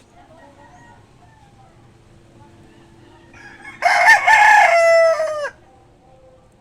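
A rooster crows once, about four seconds in: a single loud call of under two seconds whose pitch drops at the end.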